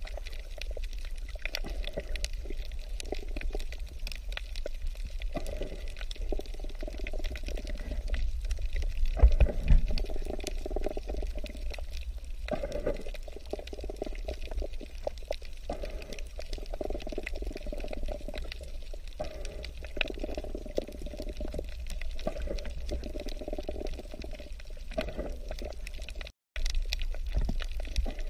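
Moving water: a continuous wash of water with a low rumble underneath and many small clicks, cutting out for a moment near the end.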